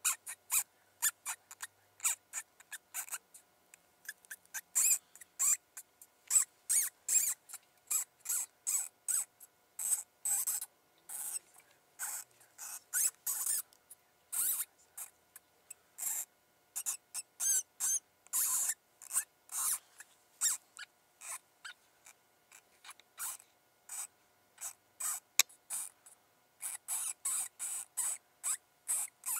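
Rapid high-pitched mouse distress squeaks from a predator call, short and sharp, about two or three a second in uneven runs, played to bring a coyote in.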